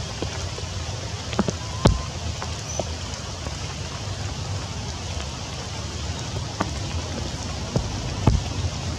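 Steady rain falling on forest foliage, with scattered sharp drip taps. The loudest tap comes about two seconds in and another near the end.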